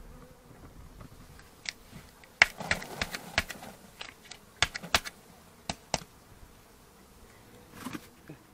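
Wooden beehive frames clicking and knocking against the wooden hive body as they are lifted out and moved, about a dozen sharp knocks packed into the middle, with one more near the end. Bees buzz faintly underneath.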